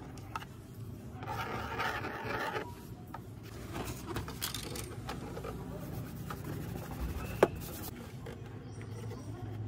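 Plastic magnetic drawing board's eraser slider rasping across the screen for about a second and a half, followed by scattered light plastic clicks and knocks as the toy slate is handled and turned over. The sharpest click comes about seven and a half seconds in.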